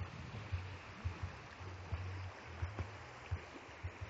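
Fast-flowing stream rushing steadily, with irregular low thumps on the microphone.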